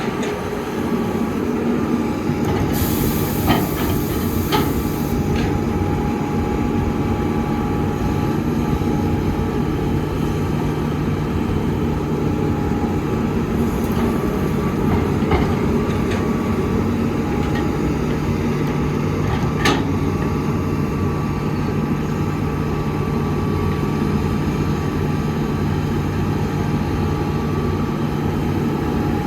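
Heavy construction machinery's diesel engine running steadily under load, with a few sharp metallic knocks and a brief hiss a few seconds in.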